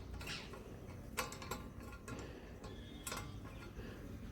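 Scattered light metallic clicks and taps, a few each second at uneven spacing, from a spanner working a nut tight while the turbo whistle is fitted.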